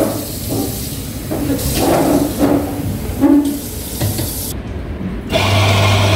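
Paper tea sachets and cardboard boxes rustling as a hand sorts through them. About five seconds in, an office coffee machine starts with a steady low hum and a hiss.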